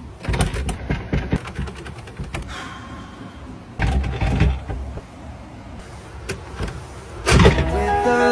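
Carved wooden double door being forced open by hand: rattling and knocking at first, a heavier shove about four seconds in, and a louder push about seven seconds in.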